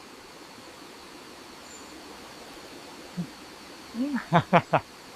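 A faint steady hiss, then near the end a short hum and a few quick voice sounds from a person.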